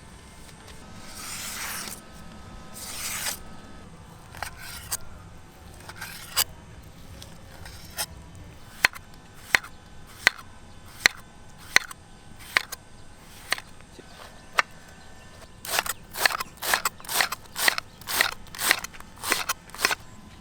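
A kitchen knife cutting on a board: a couple of drawn slicing strokes, then single sharp chops about every 0.7 s, and near the end a quick run of cuts, about three a second.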